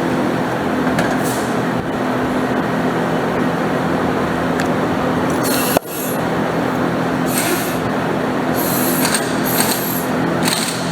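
Tire-shop machinery running steadily, a constant hum under a rush of noise while the lawnmower tire is worked back onto its rim. There is a sharp snap about six seconds in, and short high hissing spurts follow through the second half.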